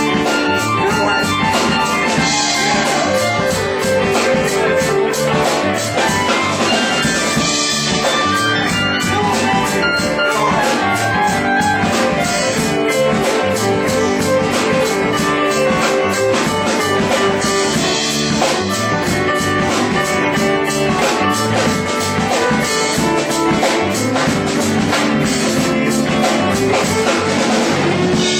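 Live band playing a soulful original song, an instrumental stretch with no words sung.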